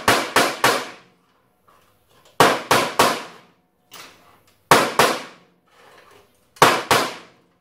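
Hammer tapping the rear sprocket's metal locking tabs flat: sharp metallic taps with a short ring, in quick groups of two or three, about ten in all.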